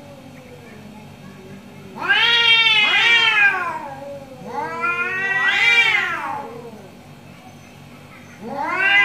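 Two orange tabby cats yowling at each other in an angry standoff: long, drawn-out yowls that rise and fall in pitch, one about two seconds in, a second around five seconds, and a third starting near the end.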